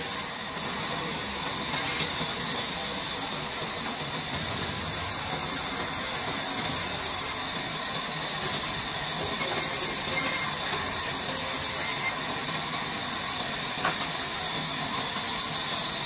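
Large sawmill band saw running and cutting through a wooden log, a steady loud hiss of blade through wood, with a couple of brief knocks.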